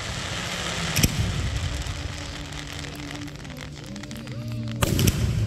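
Fireworks going off: a sharp bang about a second in, then a stretch of fine crackling from the falling effects, and a loud double bang near the end.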